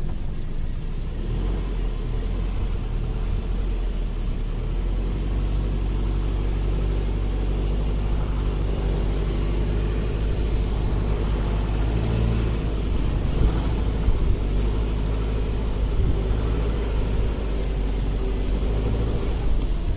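2015 Subaru Outback's 2.5-litre flat-four engine running steadily as the car drives through soft beach sand with traction control on, its tyres churning in the sand.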